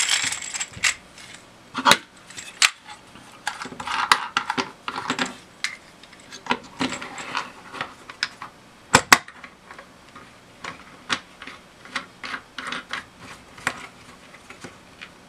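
Hard plastic parts of a suction-cup car phone mount being handled and fitted together: irregular clicks, knocks and short rattles. The loudest is a pair of sharp clicks in quick succession about nine seconds in.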